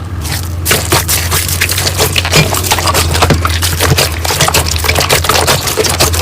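Slime being squeezed and worked by hand, giving a dense run of crackling and popping clicks throughout.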